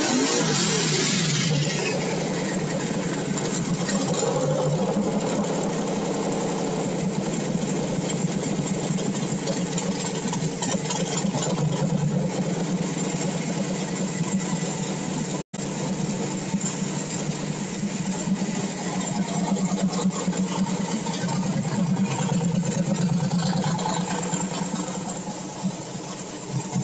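Small-block V8 on E85 with a CSU blow-through carburetor idling as it warms up, the revs falling back in the first second or two and then holding a steady idle of around 1,000 rpm. The mixture is still rich on an unadjusted tune.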